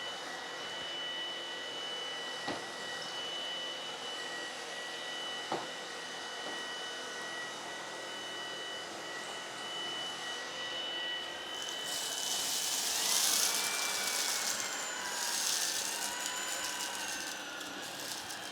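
Tineco PURE ONE S11 cordless stick vacuum running in auto mode: a steady high motor whine over a rushing hiss, with two sharp clicks a few seconds apart. About two-thirds of the way through the hiss grows louder and brighter and the whine slides up and down in pitch.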